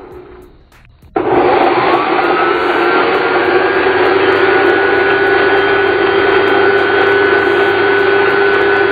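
Handheld Makita circular saw's brushed motor, freshly fitted with new carbon brushes: its sound dies away, then about a second in it is switched on again, spins up with a rising whine and runs steadily with the blade turning free.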